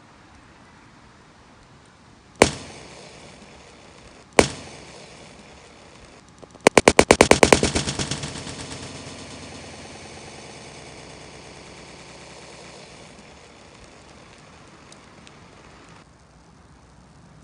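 Two single sharp bangs about two seconds apart, then a rapid string of about ten bangs in under a second, trailing off into a long fading hiss.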